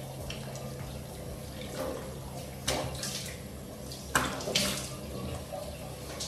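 Tap running into a bathroom sink while face wash is rinsed off by hand, with three louder splashes in the second half as water is scooped onto the face.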